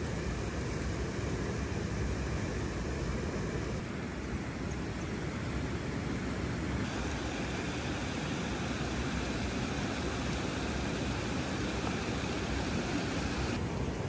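Steady rushing of river water spilling over a small weir, a constant even noise.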